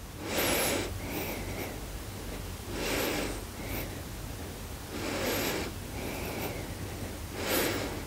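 A woman breathing audibly in and out through a close microphone, one breath about every two and a half seconds, four breaths in all, while she holds a yoga lunge.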